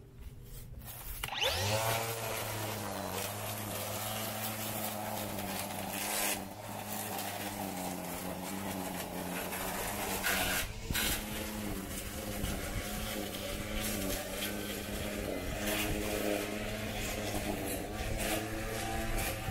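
Battery-powered string trimmer spinning up about a second in, then running steadily as it cuts grass.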